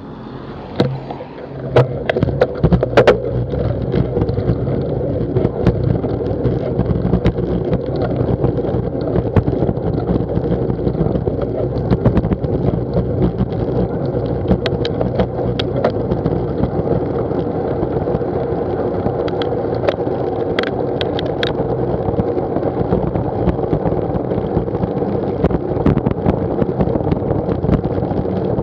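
Bicycle riding on wet tarmac, picked up by a bike-mounted action camera: a steady rumble of tyres and wind, with scattered sharp clicks and rattles, most of them in the first few seconds.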